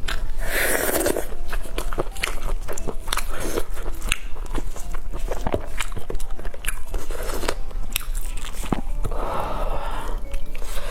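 Close-miked biting and chewing of pork knuckle: many sharp, wet clicks and smacks of the mouth working through the meat.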